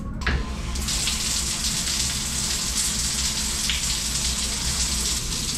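Handheld shower head spraying water steadily in a tiled shower stall, the spray starting about a second in.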